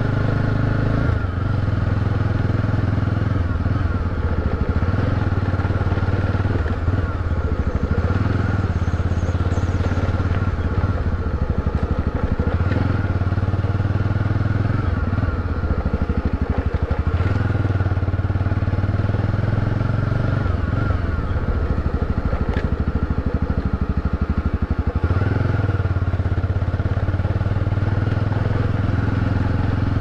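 Motorcycle engine running while riding, its pitch shifting up and down several times as the throttle changes.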